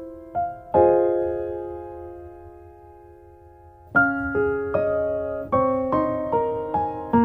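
Background piano music: a chord struck and left to fade for a few seconds, then a quicker run of single notes from about four seconds in.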